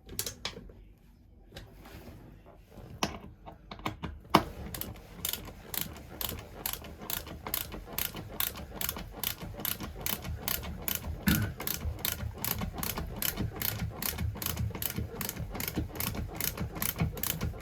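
A sharp knock, then steady mechanical clicking at about three clicks a second.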